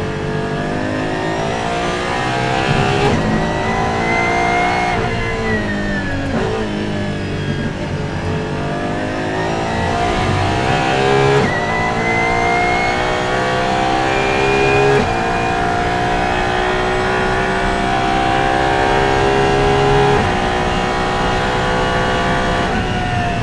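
Apollo Intensa Emozione's 6.3-litre naturally aspirated V12 at full throttle, heard from on board: the revs climb and drop sharply at each sequential-gearbox upshift, five times, with the revs falling for about a second and a half around five seconds in.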